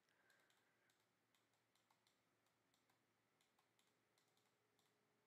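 Near silence: room tone with faint, scattered clicks.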